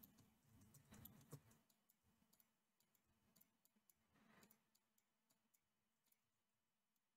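Near silence with faint, scattered clicks of a computer mouse and keyboard being used.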